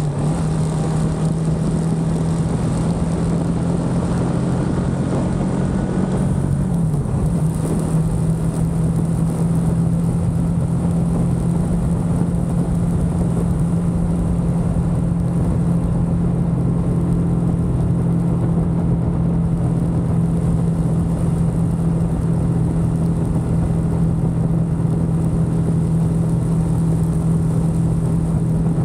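Motorcycle engine running at a steady cruising speed, a constant drone with wind and road noise over it. Its pitch dips briefly about seven seconds in, then holds steady again.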